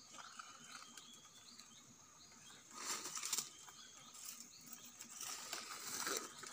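Dry leaves and split bamboo rustling and scraping as they are handled while a bamboo trap is set on the forest floor, with a louder bout about three seconds in and more rustling toward the end. Faint high chirps sound in the background.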